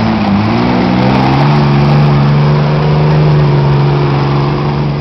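Jeep Cherokee's engine revving hard under load as the SUV climbs a steep rocky bank; the revs rise over the first second or so, then are held steady and high.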